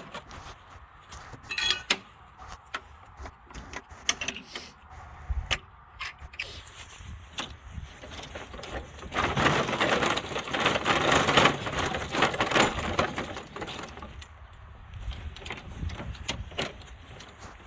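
Knocks, clicks and clatter of things being handled and moved, with a longer stretch of rattling, scraping noise about nine to thirteen seconds in.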